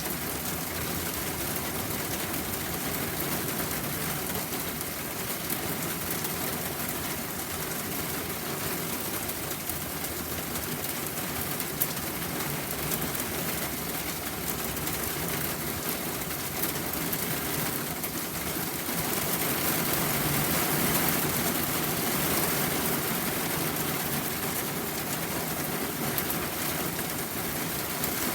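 Steady rain falling, an even hiss with scattered small drop ticks, swelling louder for a few seconds about twenty seconds in.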